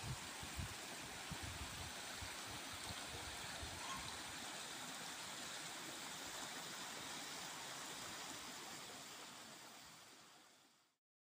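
Steady rush of a shallow stream flowing over rocks, with a few low bumps of wind on the microphone about a second in; the sound fades out near the end.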